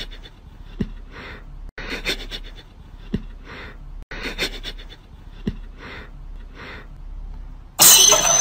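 A Pomeranian panting in soft, breathy puffs, with a sharp tick about every two and a half seconds. Loud music starts abruptly near the end.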